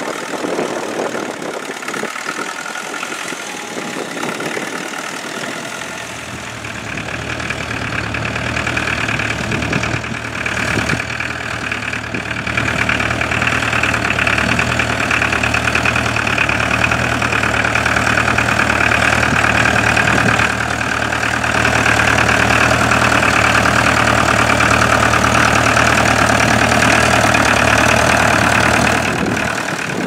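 Vintage McCormick International tractor's engine running steadily as it pulls a mounted plough through stubble, growing louder over the first half.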